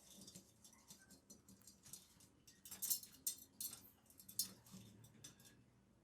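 Irregular small metallic clicks, clinks and scrapes, as of metal parts and tools being handled and worked; they cluster loudest about three to four and a half seconds in.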